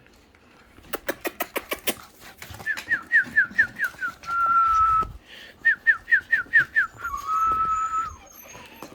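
A run of about eight quick sharp clicks, then a whistled phrase of six short falling notes ending in a long steady note, given twice.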